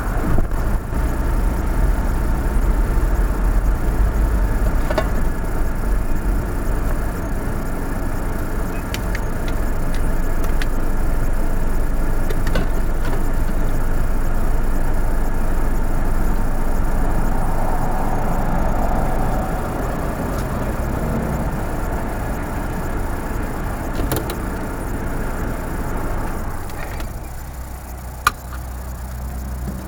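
Vehicle engine and tyre noise from the camera car, heard from inside, rolling slowly along a gravel track and then running at a standstill. There is a single sharp click near the end.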